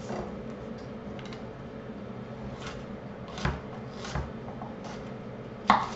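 Chef's knife chopping garlic cloves on a wooden cutting board: about six irregularly spaced knocks of the blade on the board, the sharpest near the end, over a faint steady hum.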